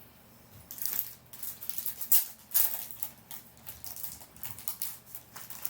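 Trading card hobby box packaging being torn open and handled: a dense run of sharp crinkling and crackling that starts about half a second in, typical of plastic wrap or foil being ripped off.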